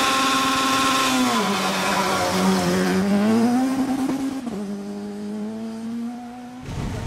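Rally car engine accelerating away on a gravel stage, shifting up twice and growing fainter as it goes. The sound cuts off abruptly near the end.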